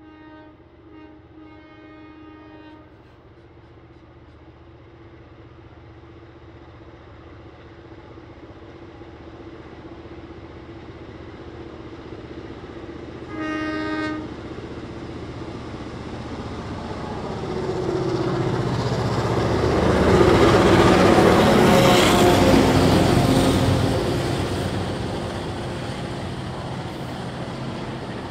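Heritage diesel locomotives sound their horn twice: a chord of nearly three seconds at the start and a short blast about thirteen seconds in. Then the engines grow louder as the train passes close, loudest a little past the halfway mark, and give way to the steady rolling of the stainless-steel passenger carriages.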